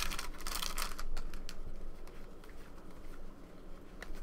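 Foil trading-card pack wrapper crinkling as it is torn open, about the first second, then quieter, scattered light clicks and rustles of the cards being handled.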